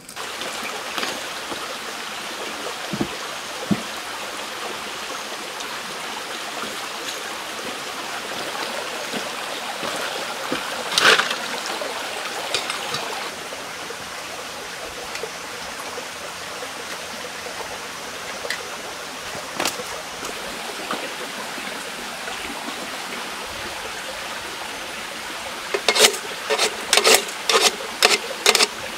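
A steady, even hiss of background noise, with a louder clatter about eleven seconds in. Near the end comes a rapid run of about ten sharp clicks, a few per second, as a hand works the base of a hurricane lantern to light it.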